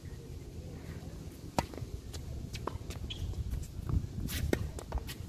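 Tennis ball being hit back and forth with rackets and bouncing on a hard court: a series of sharp pops, the loudest about a second and a half in.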